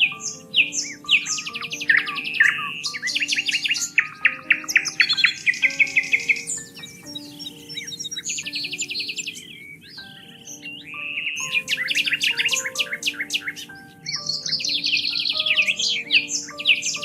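Several songbirds singing and chirping in rapid trills and quick repeated notes, overlapping densely, over soft background music of slow held notes.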